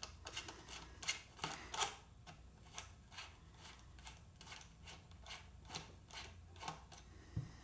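Faint, irregular light clicks and ticks of a screwdriver turning out the buttstock screw at the upper tang of a Marlin 1894 lever-action rifle, with a slightly louder knock near the end.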